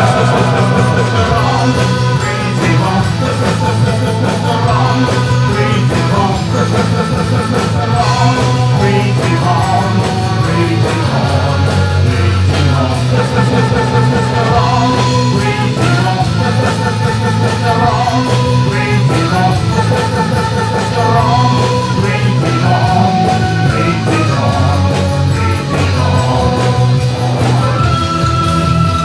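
Rock band playing live: electric guitar, bass guitar, drums and keyboard, with a male voice singing. A long held high note comes in near the end.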